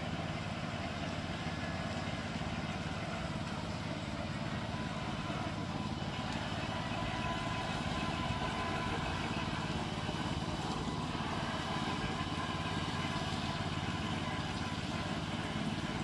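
Remote-control lawn mower's Loncin 9 hp petrol engine running steadily as the mower drives.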